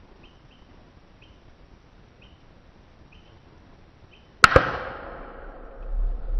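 A single gunshot about four and a half seconds in: a sharp crack with a second crack right after it, and an echo that dies away over about a second. The shot drops a wild hog. Before it, a faint short chirp repeats about once a second.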